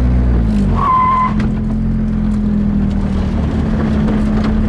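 A short, high tyre squeal about a second in as the hydraulic handbrake locks the rear wheels of a Nissan 240SX, over the steady note of its SR20DET engine running at low revs.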